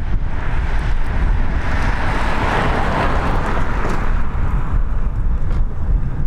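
Wind buffeting the microphone with a heavy low rumble. A rushing noise swells up from about a second in and fades away again a few seconds later.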